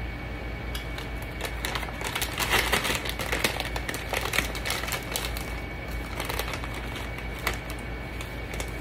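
Plastic potato-chip bag being opened and crinkled by hand, a crackling rustle that is busiest a couple of seconds in and then carries on more lightly.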